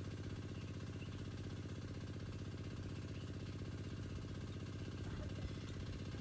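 A small engine running steadily at an even speed, with a fast, regular chugging.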